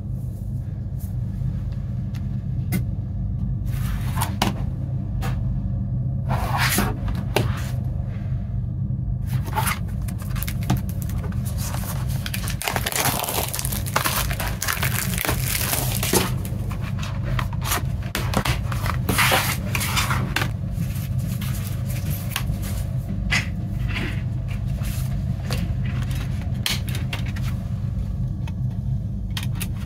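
Plastic shrink-wrap on a CD case being torn and peeled off, with crinkling and tearing that is densest in the middle stretch. Later comes lighter handling of the case and jewel case with small clicks and scrapes. A steady low hum runs underneath.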